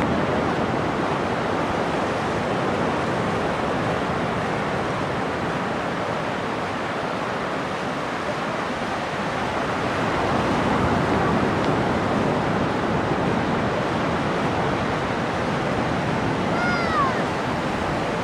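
Atlantic Ocean surf breaking and washing steadily, swelling a little about ten seconds in. Near the end a single short call falling in pitch sounds once over the surf.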